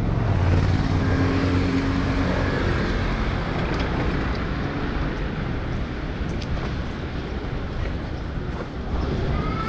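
Street traffic noise: a steady low rumble of vehicle engines, with one engine's drone standing out for the first two seconds or so.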